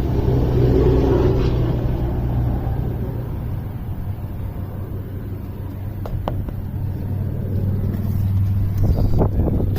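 2013 Subaru WRX's 2.5-litre turbocharged flat-four engine running steadily, a little quieter in the middle, with a few light clicks about six and nine seconds in.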